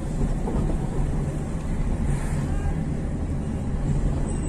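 Steady low rumble of a moving vehicle's engine and tyres, heard from inside the cabin while driving along a town street.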